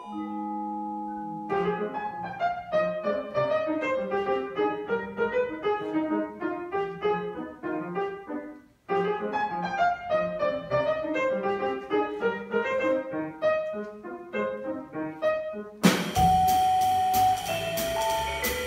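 Vibraphone played with mallets: a held chord rings, then a long run of quick notes with a short break about nine seconds in. About sixteen seconds in, a drum kit with cymbals and a double bass join in.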